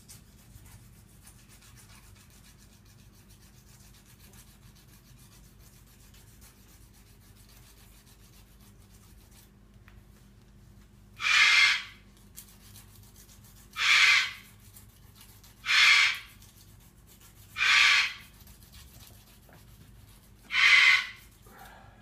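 Hand nail file rasping across a cockatoo's claw. It is faint at first, then comes in five louder strokes about two to three seconds apart in the second half. The claws are overgrown and are being filed down by hand.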